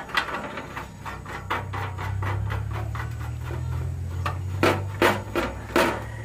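Lock nut being fitted onto a male adapter through a hole in a metal panel board: quick repeated clicking and scraping of metal, then several louder sharp knocks in the second half, over a steady low hum.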